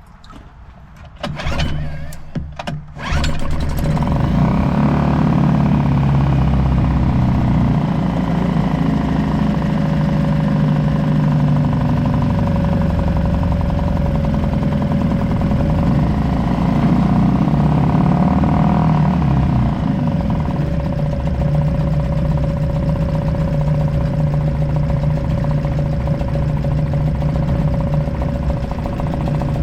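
Suzuki 2.5 HP DF four-stroke outboard pull-started with the choke on: a few quick pulls, then it catches about three seconds in and runs steadily.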